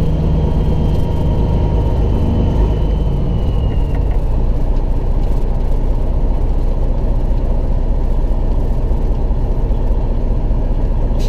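Peterbilt 379 semi-truck's diesel engine running steadily at low speed, heard inside the cab as a loud low drone while the truck rolls slowly. A faint high whine fades out about four seconds in.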